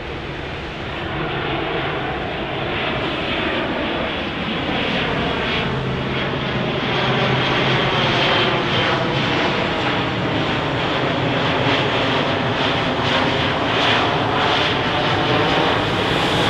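British Aerospace Avro RJ85 jetliner on final approach, its four Honeywell LF507 turbofan engines running at approach power and growing steadily louder as it comes in overhead.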